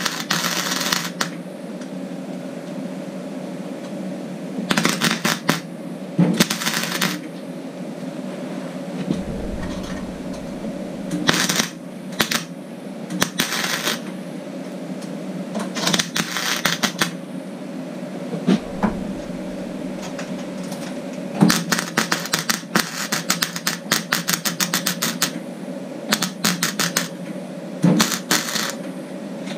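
MIG welder crackling in a series of short bursts as it fills holes in the sheet-steel lower edge of a truck door, each burst a dense sputter of clicks, with a longer run of bursts in the last third. A steady low hum runs underneath.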